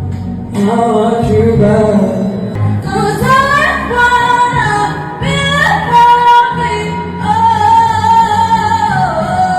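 A woman singing a slow melody with long held, sliding notes through a cheap classroom microphone and sound system, over a backing track with a steady bass.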